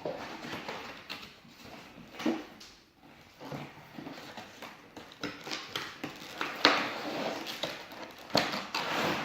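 A box and its packaging being handled and opened, with irregular rustling and scattered knocks. The sharpest knocks come about two-thirds of the way through and again near the end.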